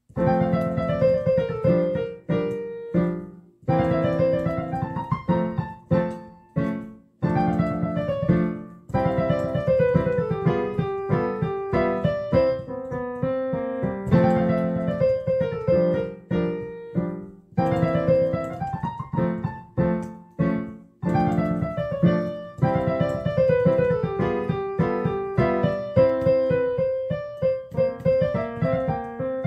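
Background piano music: quick notes in runs that rise and fall over chords, in short phrases with brief pauses between them.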